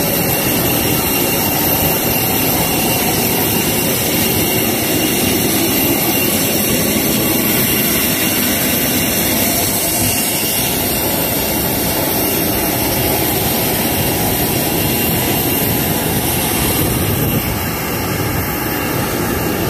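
Jet aircraft turbine running steadily on the apron: a continuous rush with a thin, steady high whine.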